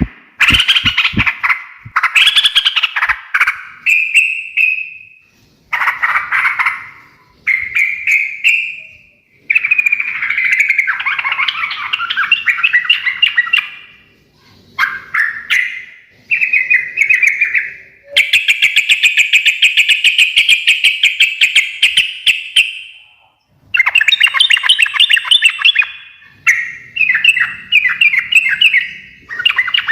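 Yellow-vented bulbul singing loud, bubbling, chattering phrases in repeated bursts with short pauses between them, including one longer unbroken run of rapid chatter past the middle.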